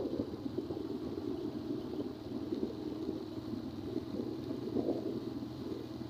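Steady low rumble of a vehicle riding along a road, with faint steady hum tones beneath it.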